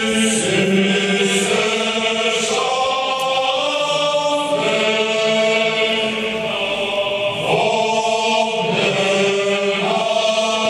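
A choir chanting a slow hymn in long held notes over a steady low drone, cutting off abruptly at the end.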